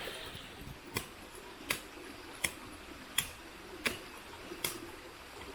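Footsteps walking at a steady pace, a short sharp step about every three quarters of a second, six in all.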